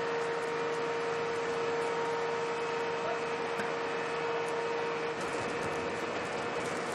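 A fire engine running: a steady mechanical drone with a constant tone over a wash of noise, the tone fading about five seconds in.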